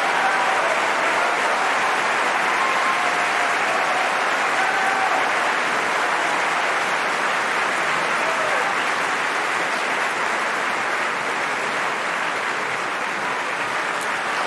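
A large theatre audience applauding steadily, with a few short shouts in the first half, easing a little near the end.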